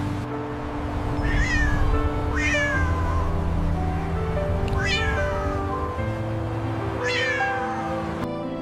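A cat meowing four times, each meow a short call that falls in pitch, over background music.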